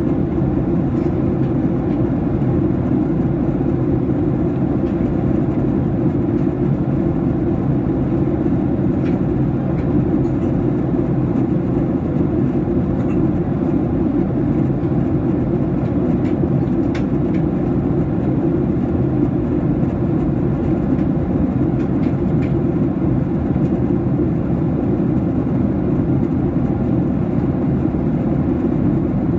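Steady cabin noise of a Boeing 737-800 in flight: deep, even engine and airflow noise that holds unchanged throughout.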